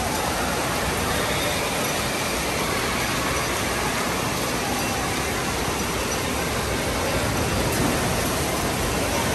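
Steady, even rush of falling and splashing water in an indoor water park.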